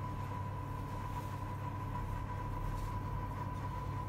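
ILVE built-in pizza oven running hot, its fans giving a steady low hum with a thin, constant high tone above it.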